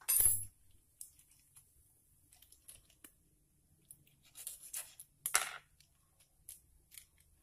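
Small plastic instant-noodle seasoning sachets being snipped open with scissors and squeezed, with a sharp crinkle at the start, scattered small snips and clicks, and two louder plastic rustles past the middle.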